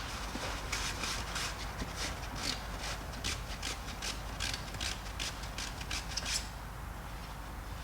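Rapid scrubbing strokes on a dirty pressure-washer inlet filter element, about three a second, stopping a little after six seconds in.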